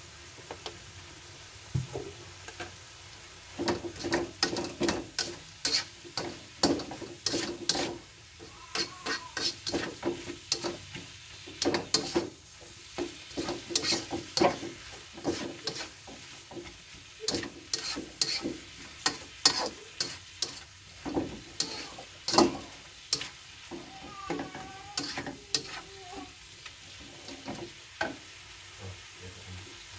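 A plastic slotted spatula scraping and tapping against a nonstick wok as chopped pak choy is stir-fried, over a soft steady sizzle. The strokes come in quick, irregular runs, starting a few seconds in.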